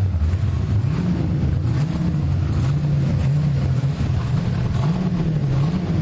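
Car engine running at idle, a steady low rumble whose pitch wavers up and down about once a second.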